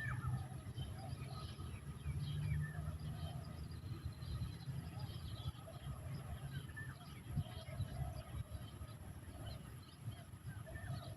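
Birds chirping and calling in short, scattered notes, over a steady low rumble.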